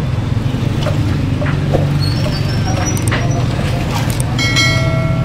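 Knife and cleaver strikes knocking on a chicken butcher's cutting block, over a steady low mechanical drone. A short pitched ringing tone comes in near the end.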